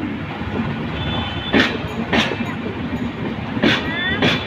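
Train running on the track with steady rumble; its wheels clack over a rail joint in two pairs, each pair about half a second apart, the pairs about two seconds apart, as the bogies pass the joint.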